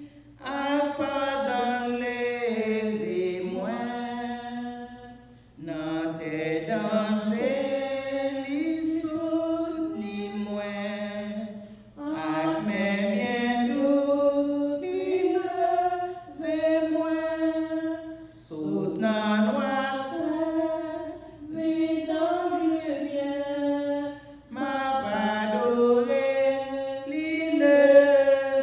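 A woman singing a slow consecration hymn in Haitian Creole, unaccompanied, in long held notes that glide between pitches, with short breaths between phrases about every six seconds.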